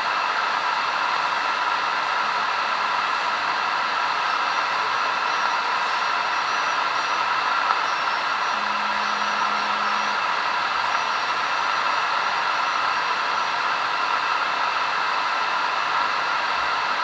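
Super Star 3600 transceiver's speaker hissing with receiver band noise on 10-metre upper sideband, an open channel with no one transmitting. Just past halfway a low steady tone sounds for about a second and a half.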